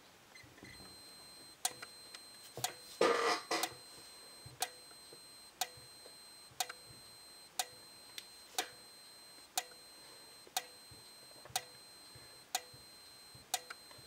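Simplex 4904-9301 30 candela sync strobe flashing on interrupted power from a sync module, with a sharp click about once a second, over a faint steady high-pitched whine. A brief rustling noise about three seconds in.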